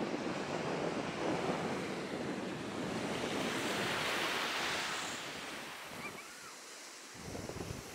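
Small waves breaking and washing up on a sandy shore, with wind buffeting the microphone. The surf hiss swells around four to five seconds in, and the wind rumble briefly drops out near the end.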